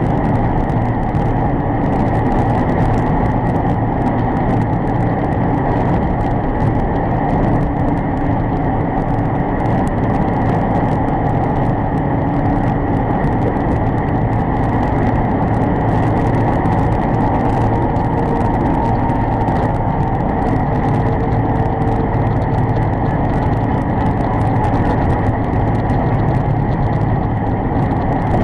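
Steady drone of engine and road noise inside a truck's cab cruising at about 55 mph on the highway.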